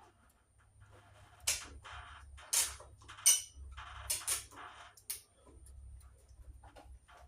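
Handling of electrical wires and wire nuts at a junction box: rustling with about six short, sharp clicks and scrapes in the middle of the stretch.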